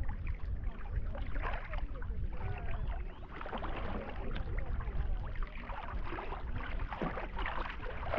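Water sloshing and splashing right at the microphone as a swimmer floating on his back moves his hands and feet, in short irregular splashes over a steady low rumble of wind on the microphone.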